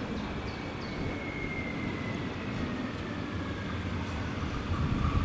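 Appenzeller Bahnen electric multiple-unit train arriving and slowing into the station: a low rolling rumble with a thin high whine that falls steadily in pitch as it slows.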